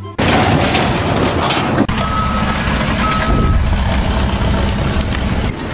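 A heavy vehicle's engine running, with its reversing alarm sounding two beeps about a second apart, and a faint high whine alongside.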